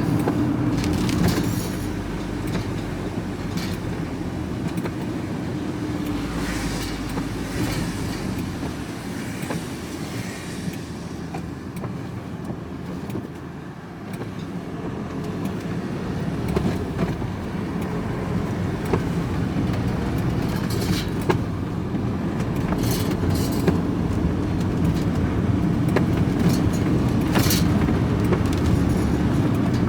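Van loaded with scrap metal driving on the road: a steady engine and road drone with the loose scrap load clattering and rattling. It eases off briefly about halfway through, then builds again.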